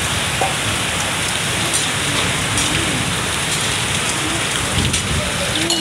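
Heavy rain falling steadily, with a few sharper drop hits close by.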